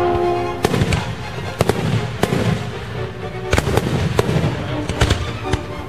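Aerial fireworks shells bursting in a string of sharp bangs, irregularly spaced about a second apart, with music playing alongside.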